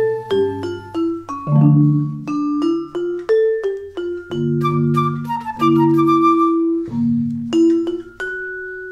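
Vibraphone and marimba playing together: a steady run of struck notes that ring on, several sounding at once.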